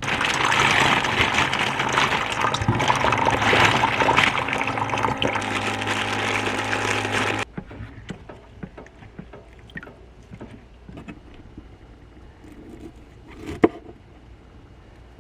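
Water running hard from a tap or shower head, then shut off suddenly about seven seconds in; a few small clicks and knocks follow.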